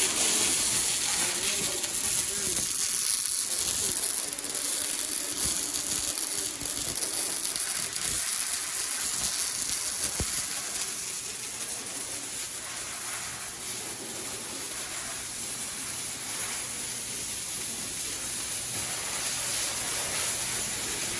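Welding arc sizzling and crackling steadily as a weld is run.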